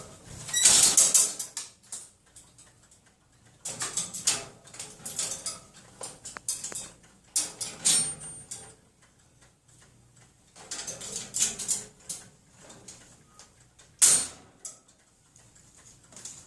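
Wire cage doors being banged and rattled by a pet, in repeated bursts of metallic clattering a second or two apart, with sharp loud clangs about a second in and again near the end.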